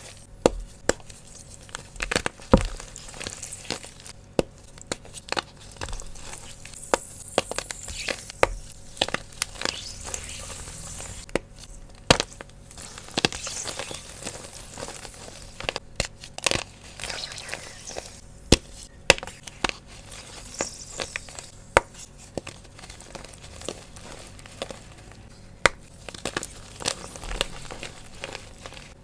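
Fresh blocks of Sports Chalk gym chalk being crushed and crumbled by hand. The sound is a dense crunching and crackling, broken by frequent sharp snaps, several of them standing out loudly.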